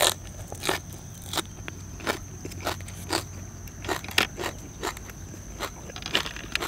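A person biting and chewing crunchy food close to the microphone: a string of sharp, crackling crunches, irregular, about two or three a second. A steady high insect trill runs underneath.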